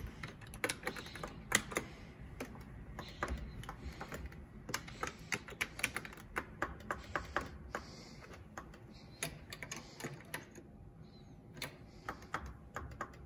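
Rapid, irregular clicks and taps in quick runs with short gaps, thinning out for a couple of seconds past the middle.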